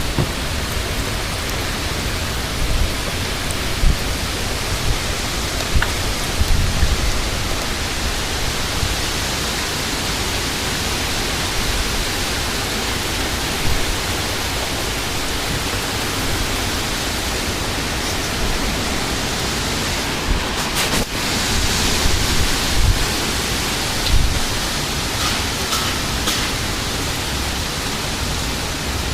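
Heavy rain and strong wind of a severe thunderstorm, a steady roar of noise with irregular low gusts buffeting the microphone.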